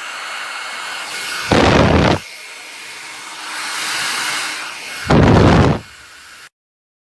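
Revlon 1875W compact folding hair dryer blowing steadily, its level rising and falling. Twice it gives a loud, deep rush of about half a second as the airflow hits the microphone. The sound cuts off abruptly near the end.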